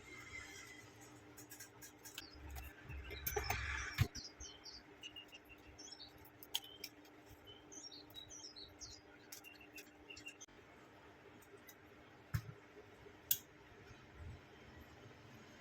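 Scattered light clicks and taps from handling laptop parts during disassembly, with a short rustle and a sharp click about four seconds in. A run of faint high bird chirps sounds in the background in the middle.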